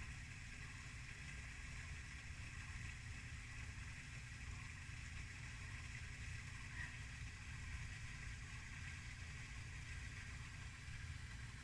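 Faint, steady low rumble with an even hiss above it, like a distant engine or traffic hum.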